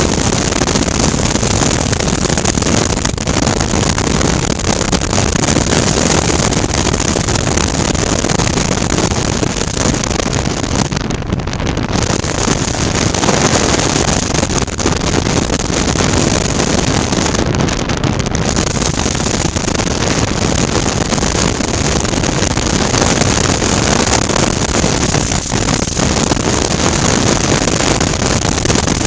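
Wind rushing over a helmet-mounted camera's microphone, mixed with the 645 cc V-twin engine of a 2019 Suzuki V-Strom 650 running steadily at road speed.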